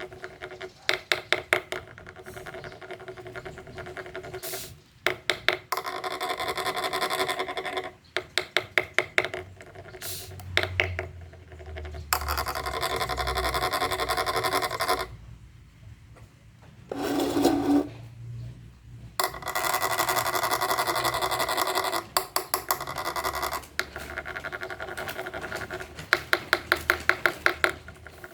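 Repeated scraping and rasping on wood, coming in quick runs of ticks several times a second between longer rubbing strokes.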